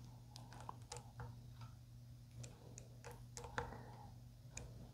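Small screwdriver turning the mounting screws of Kluson Revolution locking tuners on a guitar headstock, a quarter turn each to snug them up: faint, irregular little clicks and ticks of metal on metal.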